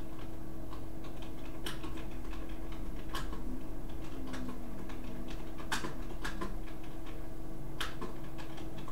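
Slow, irregular typing on a keyboard: single key clicks every second or so, over a steady low hum.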